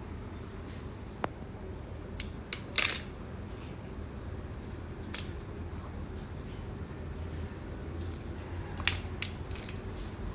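Scattered sharp clicks and crackles of small objects being handled: one about a second in, a cluster near three seconds, and three close together near the end. A steady low hum runs underneath.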